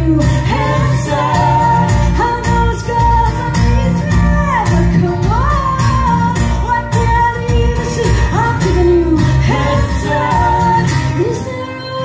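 Live band music: a woman singing lead over strummed acoustic guitars and an electric guitar, amplified through the house sound system.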